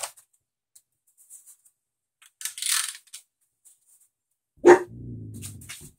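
A dog barks once, sharply, near the end, then growls low for about a second. Earlier there is a short hiss.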